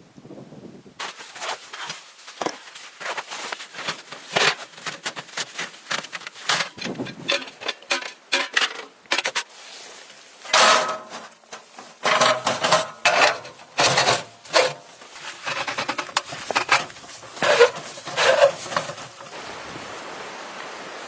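A long run of irregular knocks, cracks and crunches, like wood or snow being worked by hand, giving way about nineteen seconds in to a steady hiss of wind.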